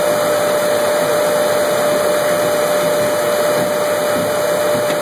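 Brunswick A-2 bowling pinsetter running close up: a loud, steady mechanical whir from its motor and drives, with one constant hum through it.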